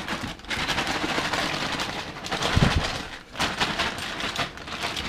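Clear plastic bag crinkling and rustling close up as a hand rummages in it for dog treats, dense for the first few seconds and then more broken. A dull thump comes about halfway through.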